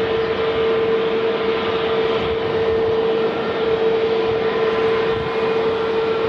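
Jet airliner's engines idling: a steady, even rushing noise with a constant droning whine through it.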